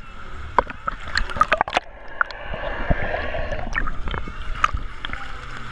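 Sea water sloshing and splashing around a GoPro held at the surface by a swimmer treading water. Small waves wash over the camera with sharp clicks and gurgles, and a longer wash comes about two seconds in.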